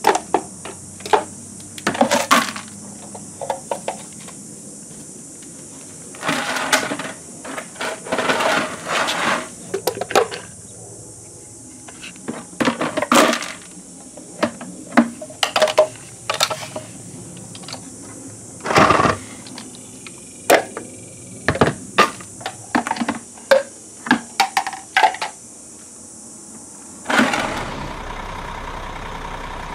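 Plastic clicks, knocks and clatter as an Unger Grabber Plus reacher's claw grips toy plastic garbage bins and they are tipped and knocked against a plastic waste basket, in irregular bursts over a steady high hiss. Just before the end it cuts to the steady running of a garbage truck.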